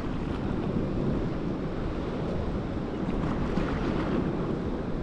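Black Sea surf washing onto the shore under a heavy swell, with wind buffeting the microphone; a steady wash of noise with no distinct events.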